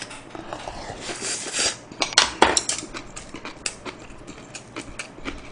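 Chopsticks clicking and tapping against a bowl and plate while someone eats, with a cluster of sharp clicks about two seconds in.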